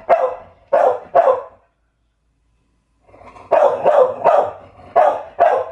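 A dog barking in sharp single barks: three, a pause of about a second and a half, then a quicker run of about six.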